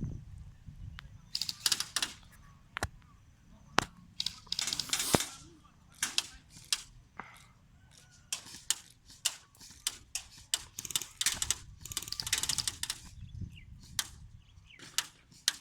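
Airsoft BB guns firing: scattered single sharp shots and short rapid bursts, busiest about eleven to thirteen seconds in.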